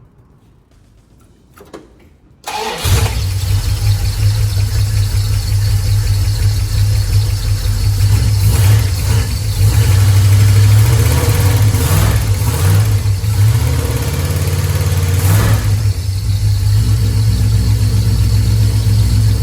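Chrysler Valiant's 318 V8 starting about two and a half seconds in and then running steadily, with a few short swells in level, as it warms up to bleed air from its freshly refilled cooling system.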